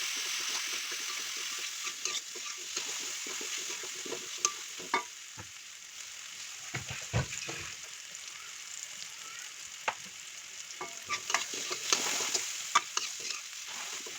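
Ground spice paste and onion sizzling in hot oil in a pan, with a spatula scraping and clicking against the pan as it is stirred. The sizzle is strongest at first and eases off after a few seconds.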